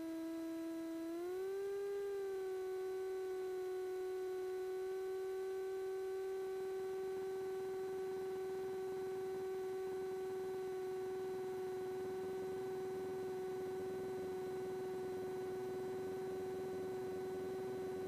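A steady electrical whine at one pitch with overtones. About a second in it glides up slightly in pitch, then holds.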